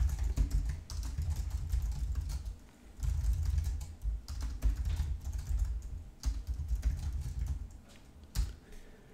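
Typing on a computer keyboard: quick runs of keystrokes with a dull thud under each click, broken by short pauses, with a few last keys near the end.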